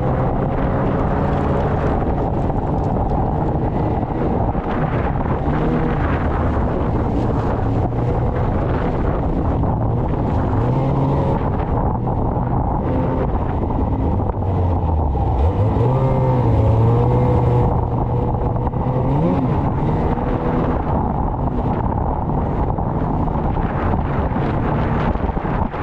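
Snowmobile engine running steadily under load, its pitch falling and then climbing again about two-thirds of the way through as the revs drop and pick back up, over a constant rushing noise.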